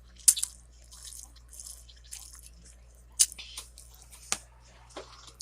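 Several sharp clicks or taps, with short soft rustling or smacking noises between them.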